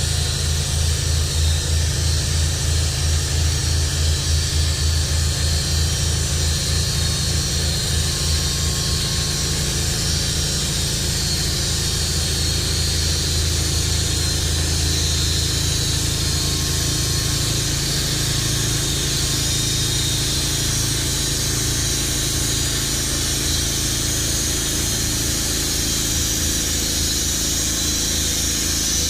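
Small gasoline engine running steadily with a pulsing low hum and a high hiss over it; the low pulsing changes character about eight to ten seconds in.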